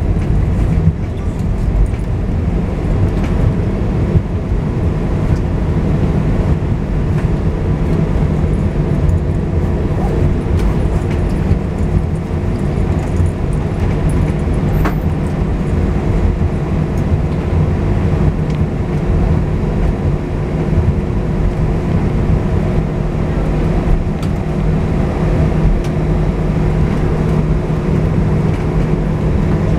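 Airbus A320 engines running steadily with a low hum as the airliner taxis after landing, heard inside the cabin as a constant roar with two steady humming tones.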